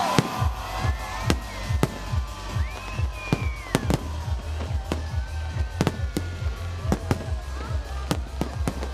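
Fireworks display: a steady run of sharp bangs from bursting shells, one to three a second, with whistles rising and falling in pitch in the first half.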